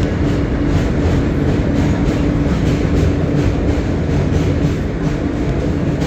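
R160 subway train running along the track: a steady rumble of wheels on rail with a constant hum, and light clicking from the rail joints.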